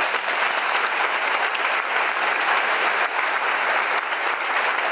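A theatre audience applauding steadily: the dense, even clatter of many hands clapping at once.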